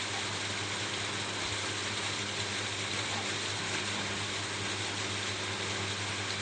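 Steady rain falling on a roof: an even, unbroken hiss of dense drops that keeps the same level throughout.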